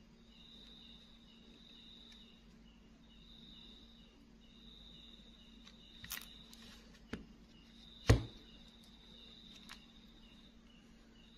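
A few sharp clicks and knocks from handling an opened smartphone and pressing on its plastic frame, the loudest about eight seconds in. Behind them, insects trill and chirp steadily in stretches of a second or two, over a faint low hum.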